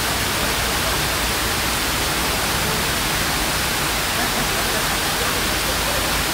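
A steady, even hiss with no separate sounds standing out of it.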